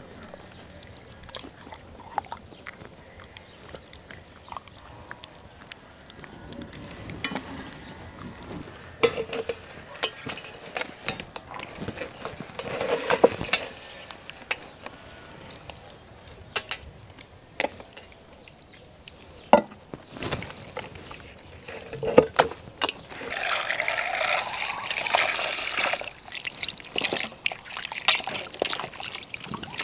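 Hands squelching wet marinade into fish and meat, with small clinks against a steel bowl. Near the end, a couple of seconds of water running into a metal bowl as potatoes are washed.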